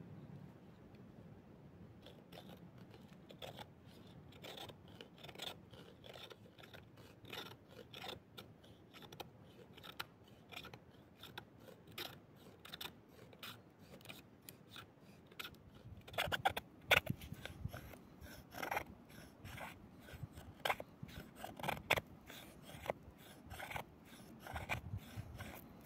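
Repeated short cutting or scraping strokes, about two a second, growing louder and sharper about two-thirds of the way through.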